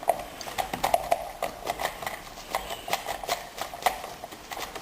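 Irregular metallic clicking, a few clicks a second, from a foil-wrapped key being worked inside a Keso 2000 dimple pin cylinder: the pins catching and trying to bind on the foil.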